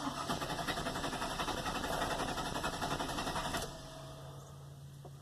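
Starter cranking the 4.8L V8 of a GMC Sierra in a fast, even rhythm without the engine catching: the truck's crank-no-start condition, which the mechanic suspects is a faulty crankshaft position sensor. The cranking stops about three and a half seconds in, leaving a faint steady hum.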